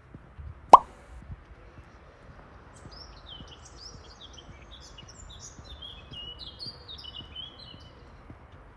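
A single loud, sharp pop just under a second in, then a small songbird singing a quick, varied string of high chirps for several seconds. Faint footsteps tick underneath.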